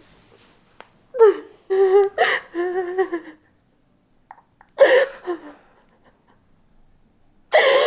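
A woman sobbing and whimpering in several wavering cries, with quiet gaps between.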